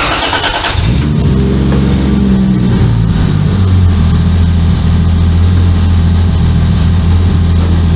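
Car engine starting up about a second in, running briefly at a higher speed, then settling into a steady idle from about three seconds on.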